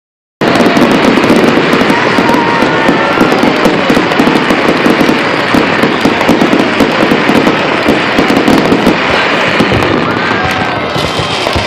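Fireworks display going off in a dense, continuous barrage of rapid pops and crackles.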